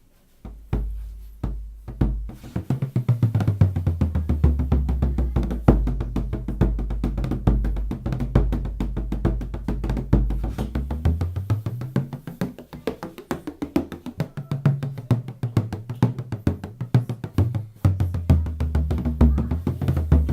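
18-inch Belgarth tunable bodhrán being played: a few single strikes, then a fast, steady run of strokes. Its deep low tone slides up and down in pitch as it is played.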